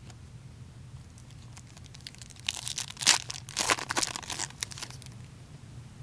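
A trading-card pack's wrapper being torn open and crinkled, a short run of crackling from about two and a half to five seconds in.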